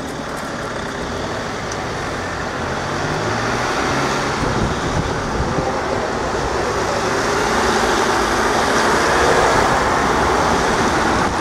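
Road traffic of cars and vans driving by one after another, with engine and tyre noise growing steadily louder as a van comes close near the end.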